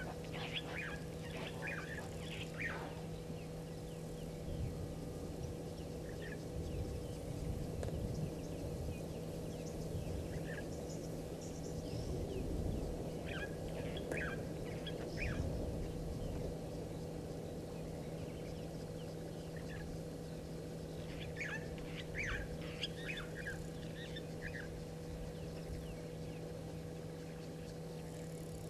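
Wild birds calling in three bouts of short, quick chirps: just after the start, around the middle and again past two-thirds of the way, over a steady low hum and outdoor background noise.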